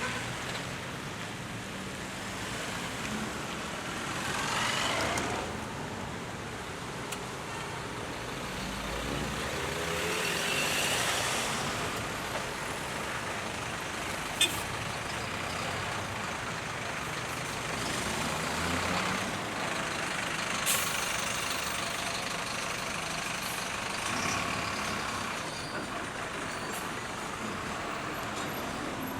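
Street traffic: cars, trucks and buses passing one after another, each swelling and fading. A sharp click is heard about halfway through and another a few seconds later.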